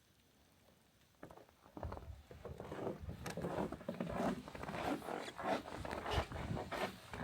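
Footsteps crunching in fresh snow. They begin about two seconds in, at roughly two steps a second, and grow louder.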